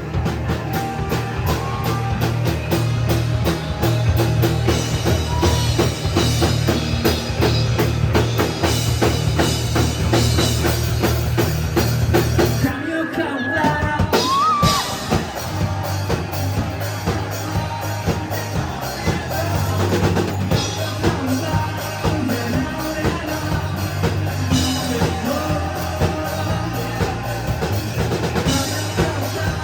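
Live rock band playing, with a full drum kit and a driving bass line; about halfway through, the bass and low drums drop out briefly before the band comes back in.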